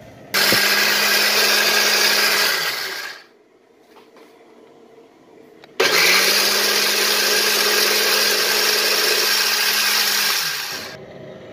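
Electric food grinder motor whirring as it coarsely grinds soaked rice, in two runs. The first lasts about two and a half seconds; after a pause of a few seconds comes a second, longer run that winds down near the end.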